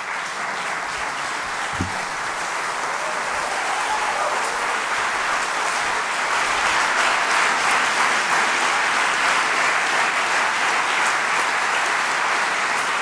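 Theatre audience applauding at the end of a stand-up comedy set. The clapping swells over the first several seconds, then holds steady.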